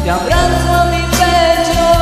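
A man singing over a karaoke backing track, holding one long note from about a third of a second in, over a steady bass line.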